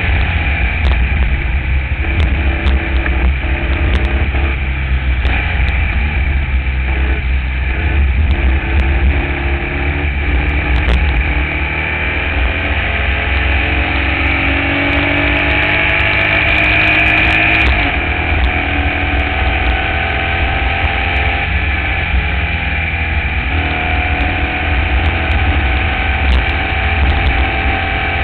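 Onboard sound of a Formula Vee's air-cooled Volkswagen flat-four engine running hard, with heavy wind rumble on the open cockpit's microphone. The engine note climbs steadily for several seconds in the middle, then drops suddenly as the car shifts up a gear, and climbs again.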